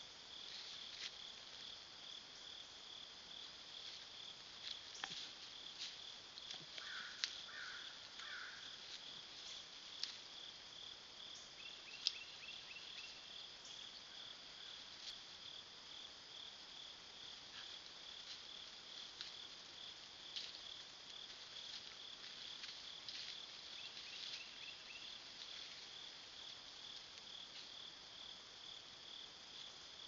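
Night insect chorus: a steady, high pulsing trill. Scattered sharp clicks and rustles sound over it, the loudest about twelve seconds in.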